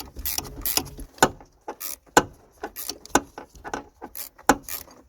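Irregular metallic clicks and knocks from tools and parts being worked at the handbrake lever as its cable clamp is loosened and the handbrake cable is freed.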